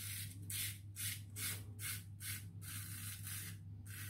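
Razorine Flatboy double-edge safety razor with a Kai blade scraping through stubble under shaving lather, in short strokes about two a second.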